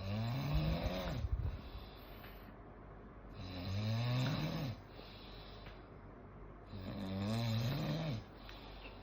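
A man snoring loudly, three long snores about three seconds apart, each rising then falling in pitch. The snoring sounds like a diesel engine.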